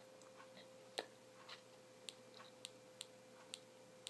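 Apple TV remote buttons clicking while navigating on screen: one louder click about a second in, then a run of light clicks about every half second. A faint steady hum lies under them.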